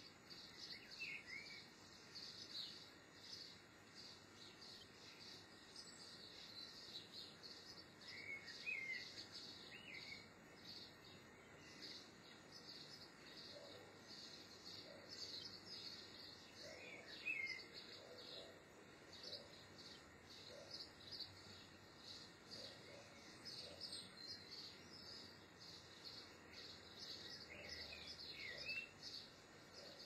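Faint, continuous high twittering and chirping of small wild birds, with a short lower call phrase repeated about four times.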